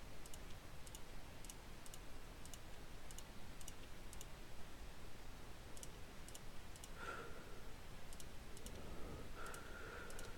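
Faint, irregular clicking of a computer mouse and keyboard Delete key, a click or pair of clicks every half second or so, over a low steady hum.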